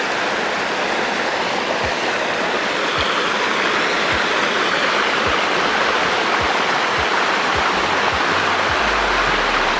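Water of an artificial waterfall rushing steadily down a man-made rock cascade.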